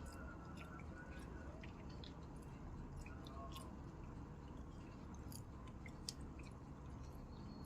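Faint scattered small clicks and light handling noises over a steady low hum, with one sharper tick about six seconds in.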